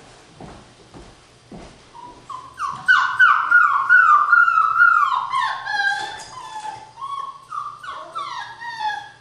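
Six-week-old Border Collie puppies whining: a quick run of short, high cries, each sliding down in pitch, about three a second, starting about two seconds in and loudest in the middle. A few light knocks come before the crying.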